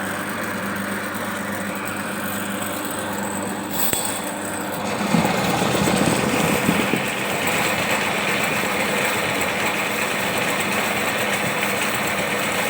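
Electric drain-cleaning machine running, spinning a steel spiral cable through a grease-clogged drain. About five seconds in it grows louder with a rumbling for a couple of seconds, then runs on steadily.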